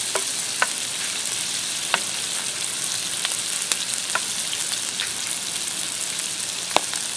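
Shrimp, corn and peas frying in a pan of butter and pineapple juice: a steady sizzle with scattered sharp pops and clicks, roughly one a second.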